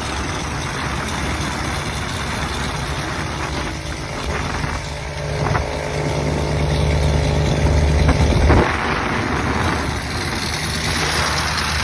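Scania V8 diesel truck engine running with a deep, steady note. From about four seconds in it grows louder, peaks at around eight and a half seconds, then drops back suddenly.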